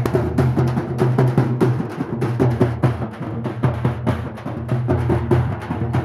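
Several dappu drums beaten together with sticks in a fast, dense rhythm, each player striking with a thin stick in one hand and a thicker stick in the other.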